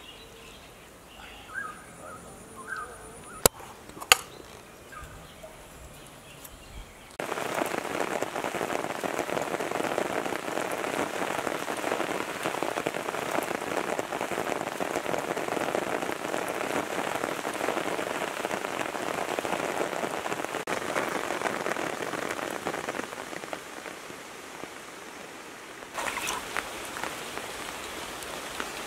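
Heavy rain pouring down, starting abruptly about seven seconds in and easing a little near the end. Before it, a few sharp knocks in a quiet stretch.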